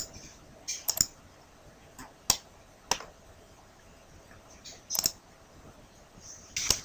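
Scattered single clicks of a computer mouse and keys, with a close pair about a second in and a few more near the end.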